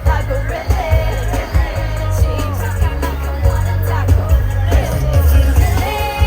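Live K-pop song over a concert sound system: female vocals singing over a backing track with a strong, steady bass.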